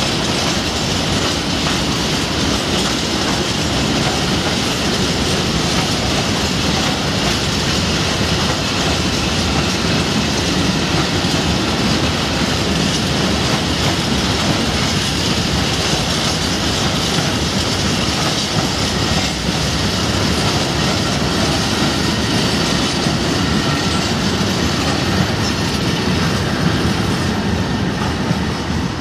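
A long train of covered freight wagons rolling past at speed: a steady, loud noise of wheels running on the rails that carries on until the last wagon clears near the end.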